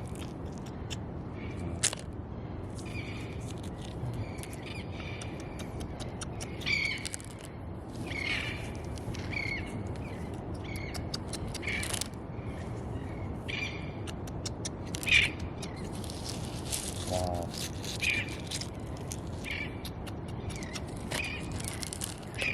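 Birds calling repeatedly in short squawks and chirps over a steady background hiss, with scattered sharp clicks.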